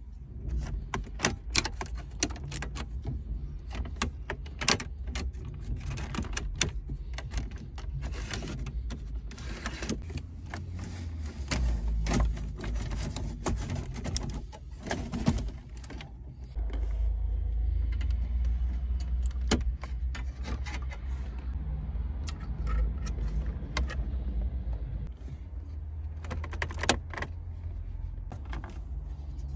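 Clicks, knocks and rattles of the VW Golf 4's plastic dash trim and a double-DIN head unit being pried with a plastic tool and slid in and out of the dash, over a steady low rumble.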